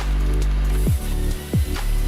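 Electronic background music with a steady deep bass and two quick falling pitch sweeps.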